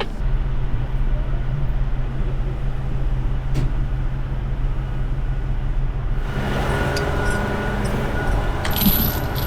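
Heavy diesel engine running steadily with a low drone, picking up speed and getting fuller about six seconds in.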